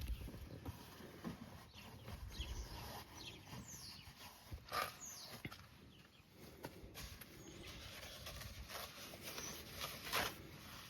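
Faint rubbing and brushing of a towel wiping a truck's interior door and handle, with a few short high squeaks and two sharper swipes, at about five seconds and near the end.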